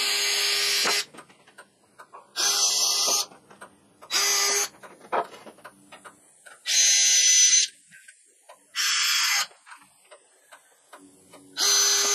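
Cordless drill boring pilot holes into pine boards, running in six short bursts with a steady whine, with short pauses between them.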